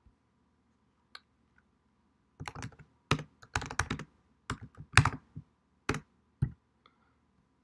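Typing on a computer keyboard: a single keystroke about a second in, then a quick, irregular run of keystrokes lasting about four seconds.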